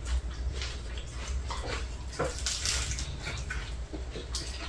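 Crisp lettuce leaves and crispy bánh xèo (sizzling rice-flour pancakes) rustling and crackling as they are torn and handled for wrapping, in short scattered crackles with one longer rustle near the middle.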